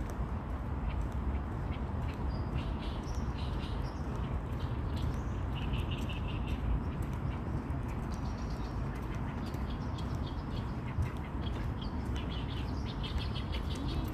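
Wild birds calling in trees: short high chirps in quick runs of repeated notes, heaviest about six seconds in and again near the end, over a steady low background rumble.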